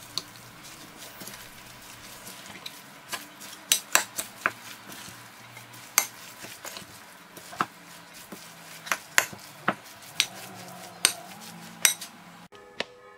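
A metal spoon stirring and tossing kısır (bulgur salad with chopped herbs) in a glass bowl: irregular sharp clinks of metal against glass over the soft scrape of the mixture. Near the end the stirring stops and soft music begins.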